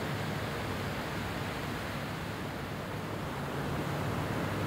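Steady rushing outdoor noise from wind and water on the river, with a faint low hum underneath and no distinct events.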